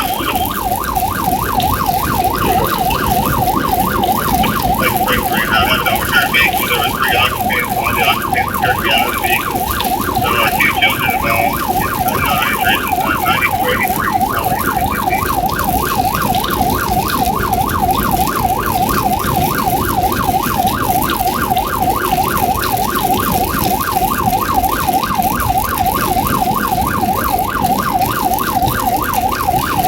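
Emergency vehicle's electronic siren on yelp: a fast, steady rising-and-falling wail that repeats several times a second, while the vehicle runs Code 3.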